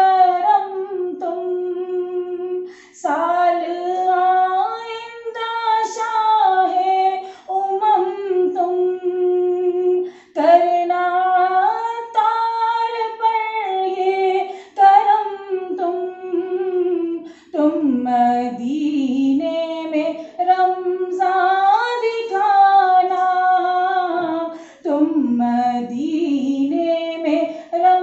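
A woman singing solo and unaccompanied, a slow melody in long held, gliding phrases with short breaks for breath every few seconds.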